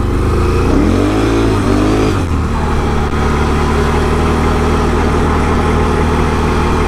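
Can-Am Renegade 1000 ATV's V-twin engine running under way, its revs rising and falling briefly about a second in, then holding steady.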